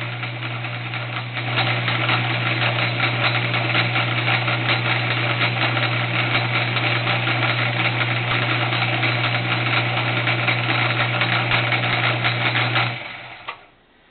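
Home-built belt-driven horizontal milling machine running with a workpiece spinning in its 5C collet spindle, as a tool bit takes a light facing cut across its end. It is a steady hum with a rough mechanical rattle and gets louder about a second and a half in. Near the end the machine stops and the sound dies away.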